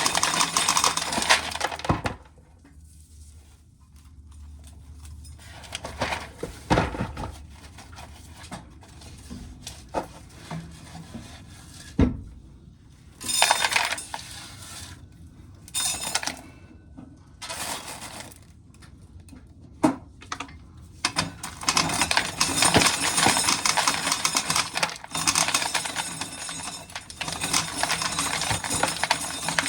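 Dry corn kernels being shelled off the ears by a corn sheller and rattling into a metal coffee can. The rattling comes in bursts with scattered clicks between them, then runs steadily through the last third.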